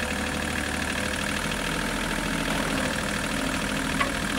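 Kubota KH-027 mini excavator's diesel engine running steadily at idle, with one sharp click about four seconds in.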